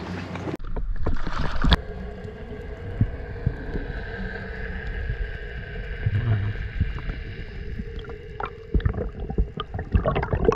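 Underwater ambience: a muffled, steady low rumble with a few faint held tones, water movement and scattered knocks. A louder run of thumps comes near the end.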